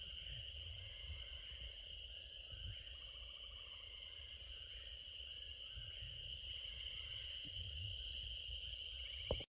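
Outdoor insect chorus: a steady high-pitched drone of many insects calling together, with an uneven low rumble underneath. A single click comes near the end, and the sound cuts off abruptly.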